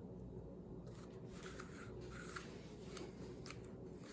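Faint clicks and rustling from a plastic Square-1 puzzle cube being handled and turned, starting about a second in, over a steady low room hum.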